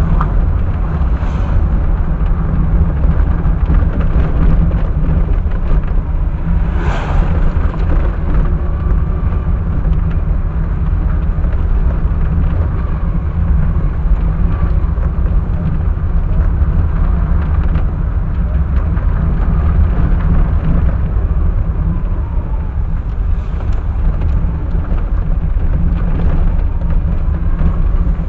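A car driving, recorded by a dashcam microphone: steady low rumble of engine and road noise, with a brief sharper noise about seven seconds in.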